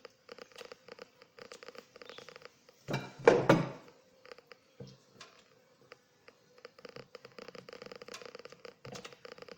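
Faint steady buzz of honeybees at an opened Langstroth hive, under a dense crackle of rubbing and handling noise, with a short louder burst a little after three seconds.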